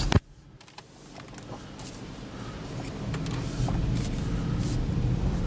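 Power window of a 2014 Chevy Equinox thumping shut at the very start, after which the cabin goes quiet. The low hum of the four-cylinder engine and the road then builds gradually inside the cabin, with a few faint clicks.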